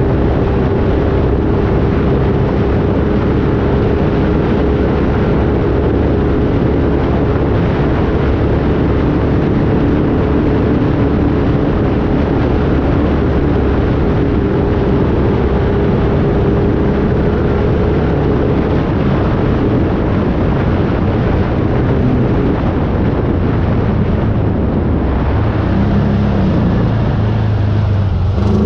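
A vehicle engine running loud and steady over dense rushing noise; near the end its note drops lower.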